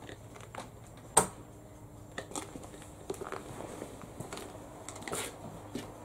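Low, steady mains hum from a 1600-amp high-current supply transformer under load as it drives current through a padlock's hasp, with scattered sharp clicks and crackles, the loudest about a second in.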